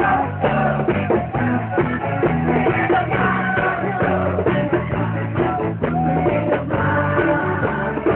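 A rock band playing live: guitar, bass and drums at a steady beat.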